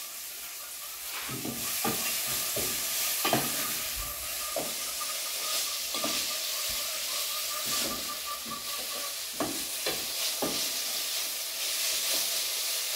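Collard greens sizzling as they sauté in oil in an aluminium pot, while a wooden spoon stirs them and knocks now and then against the pot.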